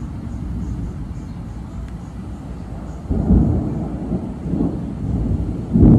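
Thunder: a low steady rumble that breaks into a sudden louder peal about three seconds in, with another sudden clap near the end.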